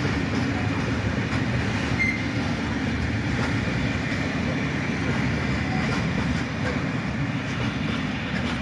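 Freight train's wagons rolling past at steady speed, a continuous heavy rumble of steel wheels on rail with faint wheel clicks, and a brief faint squeal about two seconds in.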